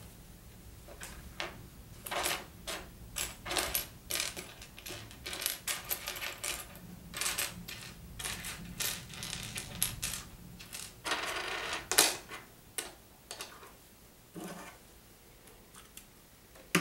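Loose plastic Lego pieces clicking and clattering as they are picked through and handled, in irregular bursts, with a denser rattle about eleven seconds in.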